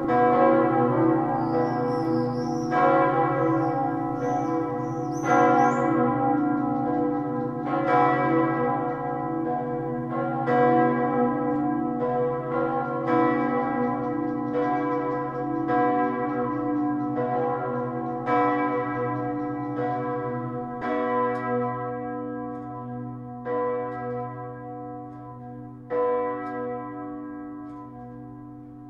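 Full peal of swinging church bells, mostly new bronze bells tuned B, C sharp, D sharp, F sharp and F, ringing out at the end of the peal. The strikes come more sparsely and grow quieter, and the sound thins about twenty seconds in.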